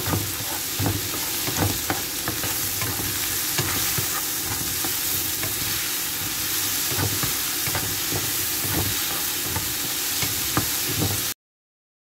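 Ground chili paste, sliced green chilies and shallots sizzling in hot oil in a nonstick wok while a spatula stirs them, with irregular scrapes and clicks of the spatula against the pan. The sound cuts off abruptly near the end.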